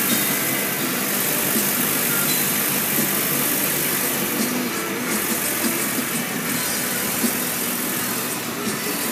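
Steady engine and road noise heard from inside the passenger cabin of a moving coach bus.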